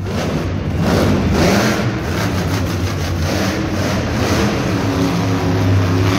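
Monster truck's supercharged V8 engine revving hard as the truck drives and spins on the dirt, its pitch rising and falling and climbing again near the end.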